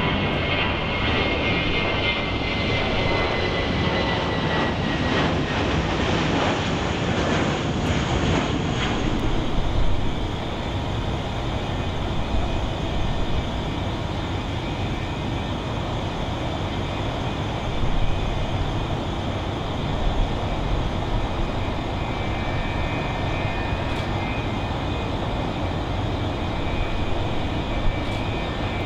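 Jet engines of an Avianca Airbus A320-family airliner climbing out after takeoff, with a whine slowly falling in pitch. From about ten seconds in, the steady engine noise of an American Airlines Boeing 767 at takeoff power on its takeoff run, with a faint held fan whine and a few brief knocks.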